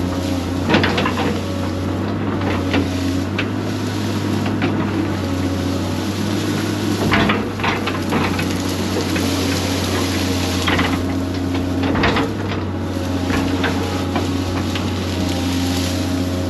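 Excavator engine running steadily under load, with several sharp knocks and cracks as the bucket digs into small pine stumps and roots.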